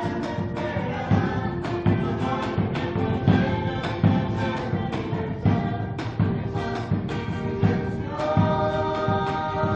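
Music with sustained choir-like voices over a steady beat.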